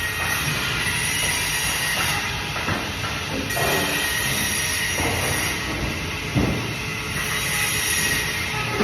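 Band saw running with a steady high whine while its blade cuts fish, with a few short knocks along the way.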